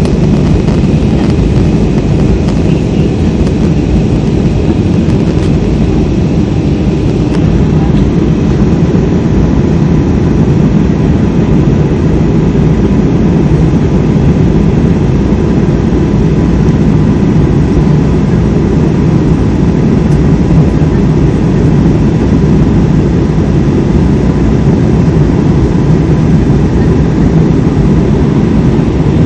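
Steady jet airliner cabin noise heard from a window seat during the climb after takeoff: the drone of the engines and the airflow, strongest in the low range, with a faint steady whine over it.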